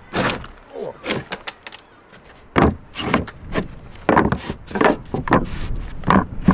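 Footsteps on wooden boards laid over a catamaran's fibreglass deck: a quick string of sharp thuds and clattering knocks as two people step across a crossbeam, thickening about two and a half seconds in.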